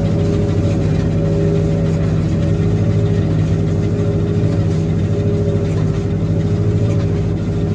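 Old tractor engine running steadily at a constant speed, with a fast, even pulsing.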